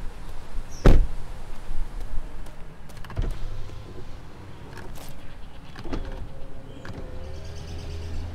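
A van door shuts with a loud thud about a second in, followed by a few lighter knocks, then an electric power window motor whirs for the last couple of seconds.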